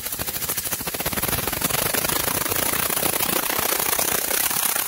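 Small homemade piston engine running fast on compressed air, giving a very rapid, even chuffing clatter of air exhaust and moving parts. The engine is running freely and is still in working order after a year in storage.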